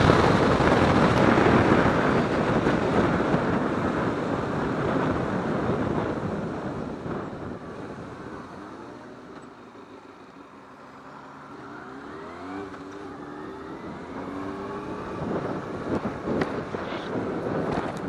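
Wind rushing over a motorcycle-mounted microphone at road speed, fading as the bike slows down. About halfway through, the motorcycle's engine comes through, its note rising in pitch as it accelerates again.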